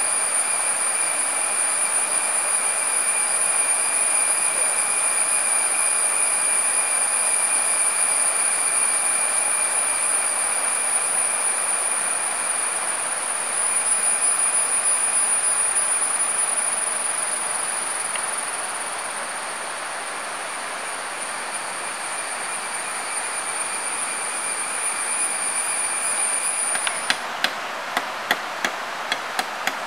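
Forest insects drone with a steady high whine over a constant hiss. Near the end the drone cuts off and a machete starts chopping into a wooden pole, sharp strikes about two a second.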